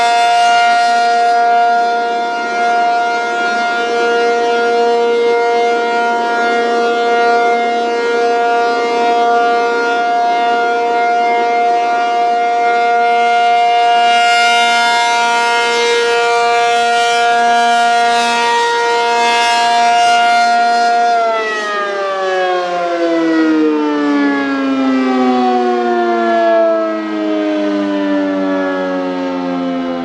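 ACA P-50 rotating electromechanical outdoor warning siren sounding its steady single-tone alert signal during a routine test, the tone swelling as the turning horn sweeps past. About 21 seconds in the power cuts and the siren winds down, its pitch falling steadily.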